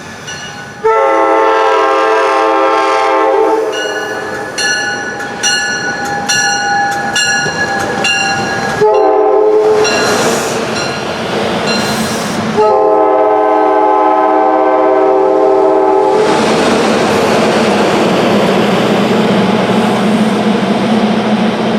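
A SEPTA Regional Rail train's five-chime Nathan K5LA air horn sounds several chord blasts: a long loud one about a second in, a weaker held one with the wheels clicking over rail joints, a short blast, and another long one midway through. The train's wheels and body then rush past with a steady hum.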